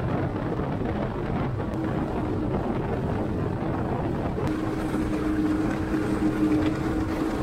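Evinrude outboard motor running at speed as the boat planes, with wind buffeting the microphone and water rushing along the hull. A steady engine hum stands out more clearly from about halfway.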